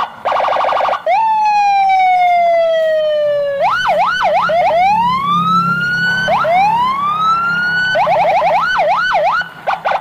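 Electronic siren of a toy military police car, cycling through several patterns: a fast pulsing beep, a long falling wail, quick up-and-down yelps, two slow rising wails, more quick yelps, then the pulsing beep again near the end.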